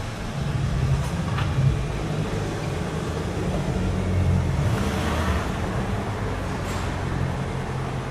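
A low, steady rumble.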